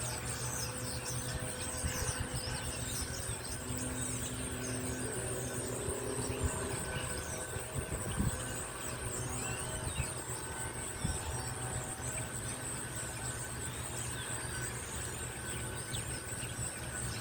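Steady low mechanical hum of a building's outdoor fan unit, with a constant high drone of insects above it.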